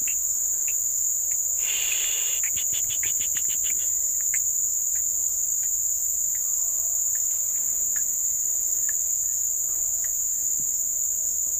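Steady, high-pitched chorus of insects droning without a break. A few seconds in there is a brief rustle, then a quick run of about ten clicks.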